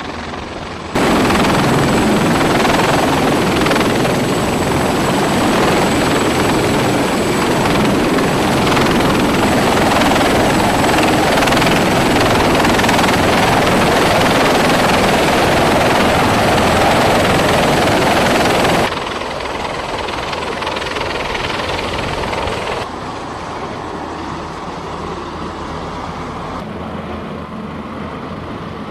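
CH-53E Super Stallion heavy-lift helicopter hovering with a slung cargo load: loud, steady rotor wash and turbine noise with a faint high whine. The sound rises abruptly about a second in, then drops suddenly about two-thirds through and again a few seconds later, as the helicopter is heard from farther off.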